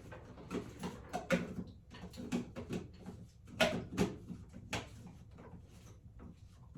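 Irregular plastic clicks and knocks from handling and twisting a water filter cartridge back onto its housing.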